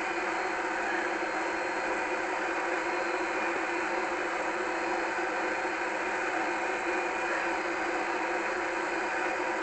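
A small motor running with a steady, unchanging hum.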